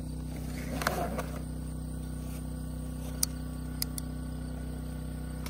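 Steady low mechanical hum, with a few sharp clicks about a second in and again around three and four seconds in.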